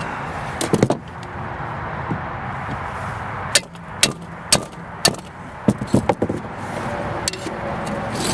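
Sledgehammer striking the steel core of a microwave oven transformer to knock the brazed steel plate off its bottom: a quick cluster of sharp blows about a second in, then about a dozen more separate blows through the second half.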